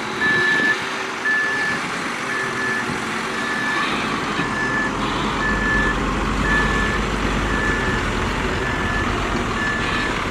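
Back-up alarm on a piece of heavy earthmoving equipment, a single-tone beep repeating about once a second, over the steady running of a heavy engine that grows louder about four seconds in.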